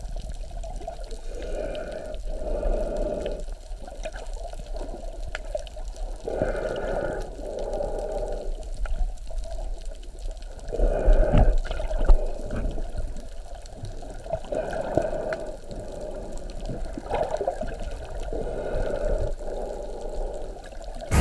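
Water sloshing and gurgling, swelling and fading every second or two over a steady low rumble.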